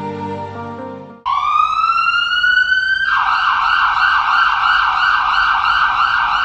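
Sad background music fading out, then an electronic emergency siren starting about a second in: a rising wail for about two seconds, then a fast, regular warbling yelp.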